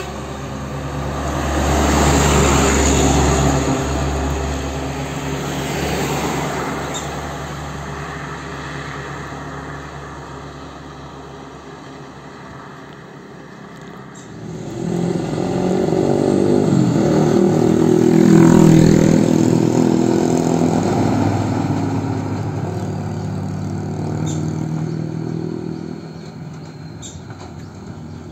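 Medium diesel trucks hauling oil palm fruit bunches driving past close by, one after the other: each engine drone swells as the truck approaches and fades as it goes by. The first passes a couple of seconds in; the second, louder and lower, passes around the middle and trails off near the end.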